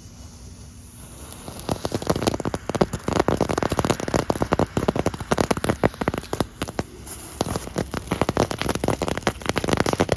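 Small ground novelty firework crackling: a fast, dense stream of sharp pops and crackles that starts about a second and a half in and keeps going.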